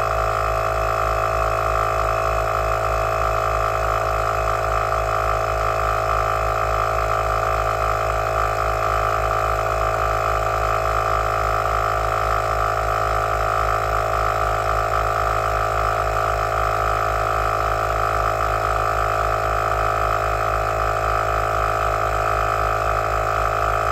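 Heyner Big Air 40L 12-volt tyre compressor running steadily under load while pumping air into a large van tyre: an even motor hum with a fast, regular piston pulse.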